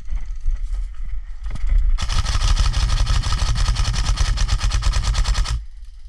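Airsoft gun firing a long full-auto burst of very rapid shots, lasting about three and a half seconds and starting about two seconds in, after fainter scattered shots.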